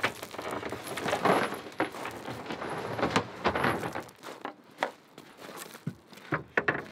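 A small boat's hull scraping and knocking as it is turned over and moved toward the water. Rough scraping runs for the first few seconds, then gives way to scattered knocks and clicks.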